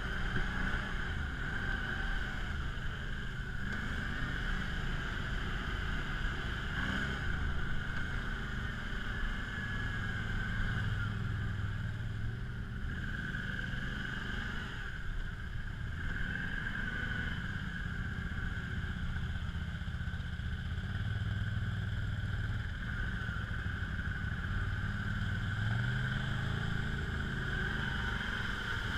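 Quad bike (ATV) engine running at a steady pace while riding, with small rises and falls in revs.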